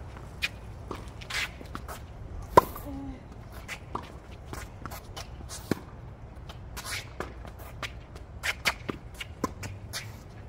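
Tennis rally on a hard court: several sharp pops of rackets hitting the ball, the loudest about two and a half seconds in, with sneakers scuffing and footsteps on the court surface between the shots.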